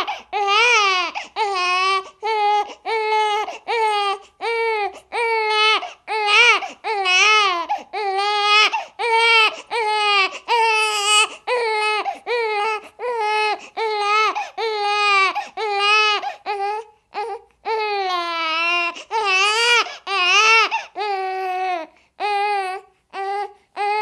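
A baby crying hard and without letting up: a quick run of short wails, a little over one a second, each with a wavering pitch.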